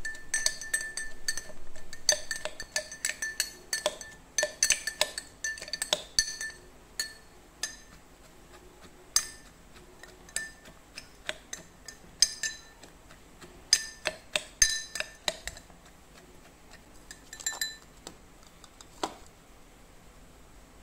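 Metal spoon clinking and scraping against a tall drinking glass while crushing cucumber and mint leaves in its bottom: a quick run of taps with a short glassy ring, thinning to scattered clinks in the second half.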